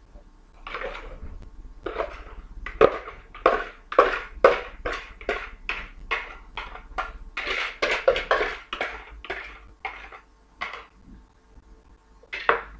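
A kitchen utensil scraped again and again around the inside of a plastic mixing bowl as the last of a wet batter is emptied out: a quick run of short scrapes, about two or three a second, that stops about eleven seconds in. One more sharp knock comes near the end.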